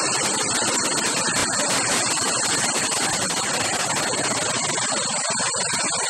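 Steady rush of water from a small waterfall cascade and stream, an even hiss with no breaks.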